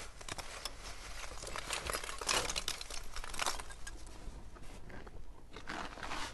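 Rustling and crackling with many small clicks, from a sack of charcoal being handled and its lumps tipped into the earthing pit.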